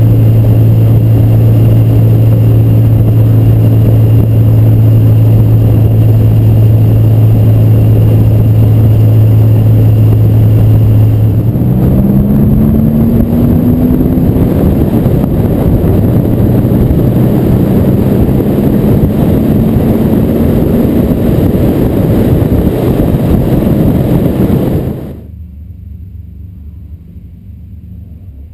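Air-cooled 3.0-litre flat-six of a 1976 Porsche 911 with SC engine and SSI exhaust with Dansk muffler, heard close up from a camera on the car's body: a steady drone at cruise, then the engine note rises twice as the car accelerates. About 25 s in it cuts abruptly to a faint, distant low rumble of the car approaching.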